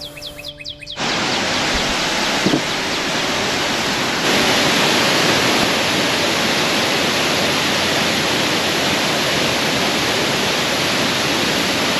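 Waterfall rushing steadily as water cascades over rock, starting about a second in and growing a little louder about four seconds in, with one brief knock near the start.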